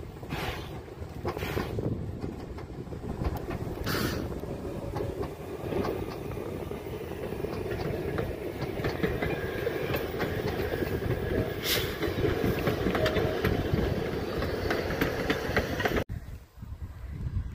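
Narrow-gauge steam train passing close by: steady rumble of the locomotive and coaches with the clickety-clack of wheels over rail joints and a few sharp louder sounds about 4 and 12 seconds in. The sound cuts off abruptly near the end to a much quieter background.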